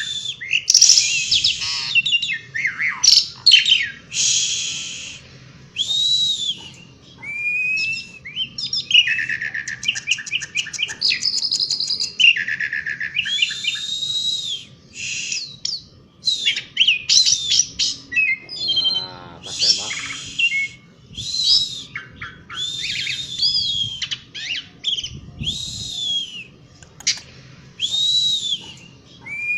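Asian pied starling (jalak suren) singing in a long, continuous outpouring: a rambling string of loud whistles, harsh chattering and buzzy rattling notes in quick phrases with only short pauses.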